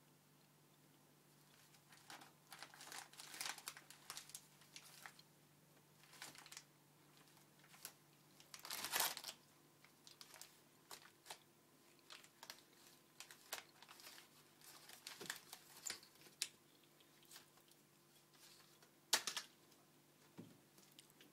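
A cat rummaging in a kitchen cupboard, crinkling and rustling packaging in irregular bursts. The loudest bursts come about nine seconds in and again near the end.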